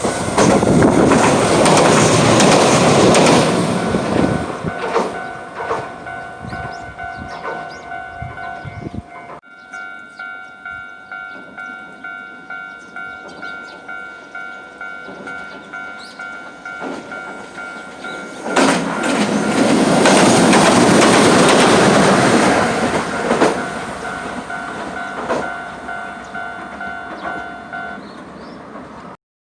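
Two Hiroden (Hiroshima Electric Railway) trains run over a level crossing, the first passing loudly at the start and the second about two-thirds through. Between and under them the crossing's warning bell dings on steadily and stops shortly before the end.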